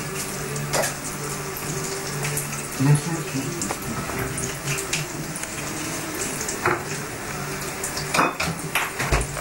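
Eggs and bacon sizzling in a frying pan on a gas hob, with scattered clinks of dishes and cutlery being handled at the sink.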